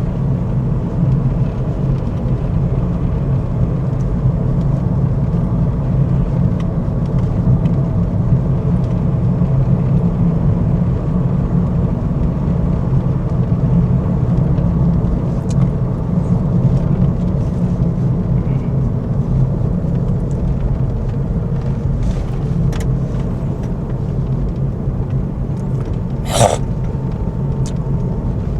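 Steady rumble of a car's engine and road noise heard from inside the moving car. A single brief sharp click sounds near the end.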